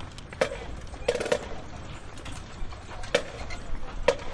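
Wooden bars of a front-ensemble xylophone knocking and clunking as the instrument is handled, about five sharp knocks, each with a short ringing tone.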